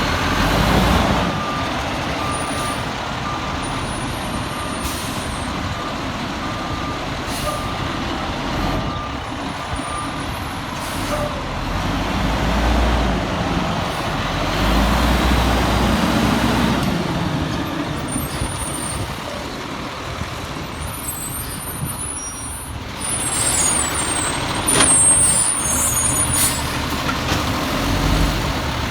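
Volvo garbage truck working, its diesel engine running and rising and falling in level. For the first ten seconds or so its reversing alarm beeps at an even pace, about once a second.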